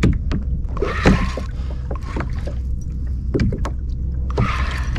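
Small waves slapping and lapping against a kayak hull, with two louder rushes of water about a second in and near the end, and a few sharp knocks. Wind rumbles steadily on the microphone underneath.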